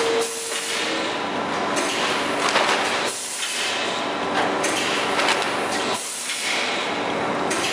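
Automatic rotary packing machine line running: a steady hissing, clattering machine noise with scattered clicks, swelling and dipping in a regular cycle about every one and a half seconds.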